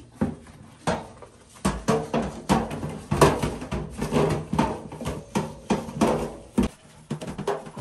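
Dishes and kitchen utensils clattering as they are handled: an irregular string of sharp clinks and knocks, about two a second.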